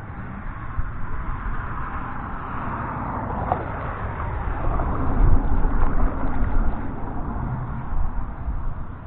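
Water and wind rushing around a moving kayak, with road traffic on the bridge overhead: a vehicle crossing swells to a peak around the middle, falling in pitch as it passes.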